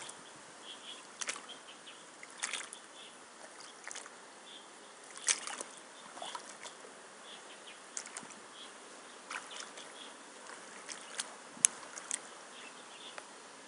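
Rubber wellington boots stepping through shallow muddy water, each step a short sharp splash, coming irregularly about every one to two seconds.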